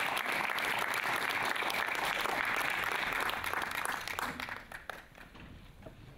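Audience applauding, a dense clatter of many hands clapping that dies away about four to five seconds in.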